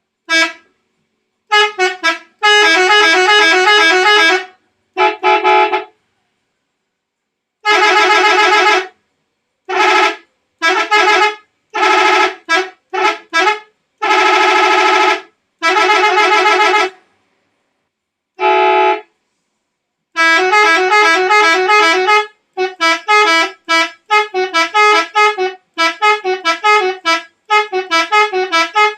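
Indonesian telolet bus horn, a set of musical air-horn trumpets, sounding in a series of separate blasts: a few short toots, several held chords of one to two seconds, and from about two-thirds of the way in, quick runs of short notes tooting out a tune.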